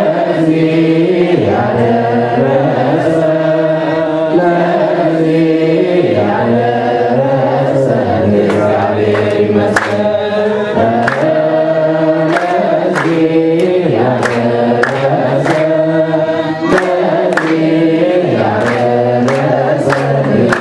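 A group chanting a slow hymn, led by a priest singing into a microphone, with held, drawn-out notes. From about eight seconds in, steady hand-clapping keeps time with the singing, about one and a half claps a second.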